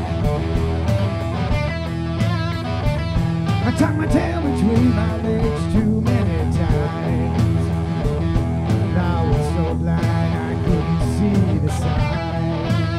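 Live rock band playing an instrumental break: electric guitar, bass guitar and a drum kit, with a lead line that bends in pitch near the middle.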